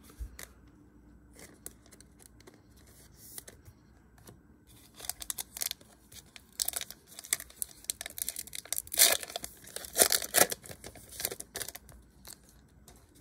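A trading-card pack wrapper being torn open and crinkled: a dense run of sharp crackling rips through the second half, after a few faint handling clicks.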